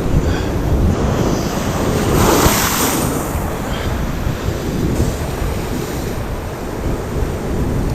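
Surf breaking on the rocks with wind buffeting the microphone; a wave washes in louder about two seconds in.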